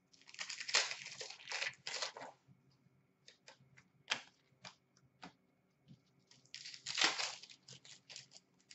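Hockey card pack wrappers being torn open and crinkled in the hands, in two bursts, one about two seconds long at the start and a shorter one about seven seconds in. Between them come light clicks and flicks of cards being handled.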